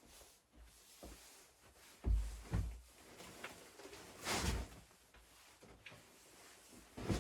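A few dull thumps and knocks: two close together about two seconds in, another about four and a half seconds in, and one more near the end.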